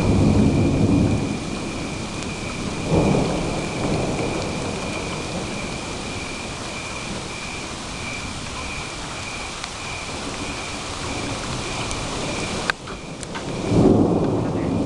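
Thunder rumbling over steady rain. A rumble fades away in the first second or so, a shorter one comes about three seconds in, and another builds up near the end.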